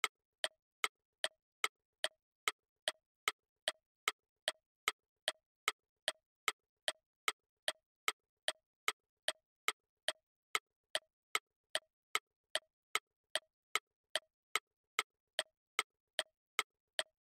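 Clock-ticking sound effect marking a countdown timer: a steady tick-tock of about two and a half ticks a second, every other tick a little different in tone.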